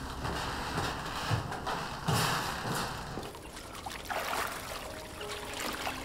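Water trickling and splashing as wet laundry is lifted and wrung out over a washtub. Faint steady music tones come in near the end.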